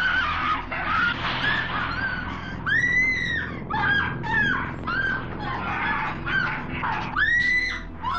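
A young woman screaming in terror again and again: short shrill shrieks, with two longer held screams about three seconds in and near the end, over a low steady hum.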